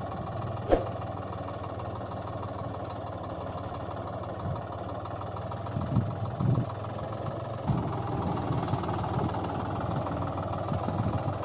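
Engine idling steadily with an even beat, like a tractor at idle. A sharp click comes just under a second in, and a few short thumps around six and eight seconds in.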